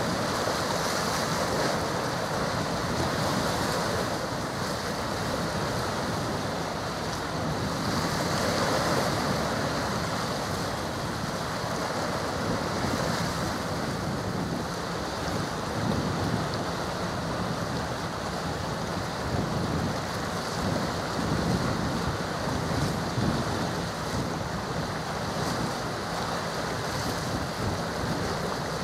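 Steady wind buffeting the microphone over the wash of waves on the water, with no clear engine tone or sudden sounds.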